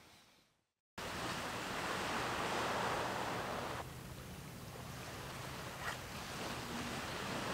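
Outdoor ambience of wind and river water, a steady rushing hiss. It starts about a second in after a moment of silence and eases off partway through.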